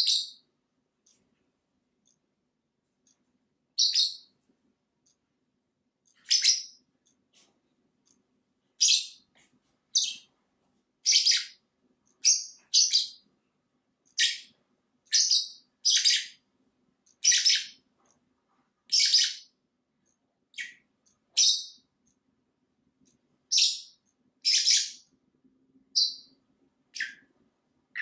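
Pet lovebirds, a black-masked and a Fischer's lovebird, giving short, sharp, high-pitched chirps, about twenty of them, one every second or so with a few longer gaps.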